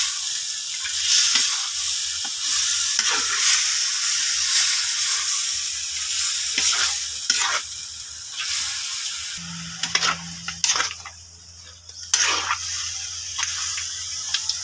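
Marinated pork pieces sizzling in a wok while a metal spatula scrapes and knocks against the pan as they are stirred, the scrapes coming every second or so. The sizzle goes briefly quieter about eleven seconds in, then picks up again.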